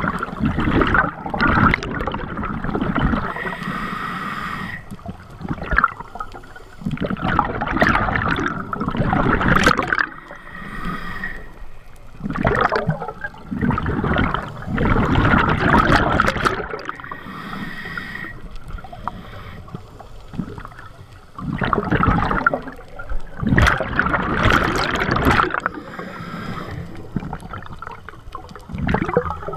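Scuba regulator breathing heard underwater: exhaled air bubbles gurgling out in bursts of a second or two, with a short, fainter hissing inhale between them, about one breath every six or seven seconds.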